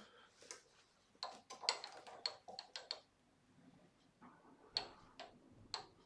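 Scattered light clicks and knocks as an apple-wood blank is shifted and re-seated between the centres of a stopped wood lathe. A quick run of them comes about a second in, and a few more come near the end.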